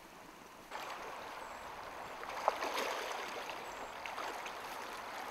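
Shallow moorland stream running over stones, a steady rush of water that comes in suddenly under a second in, with a couple of sharp clicks near the middle.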